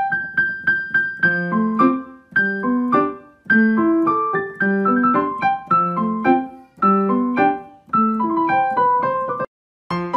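Background music: a light piano melody of short struck notes in repeating phrases, breaking off briefly near the end.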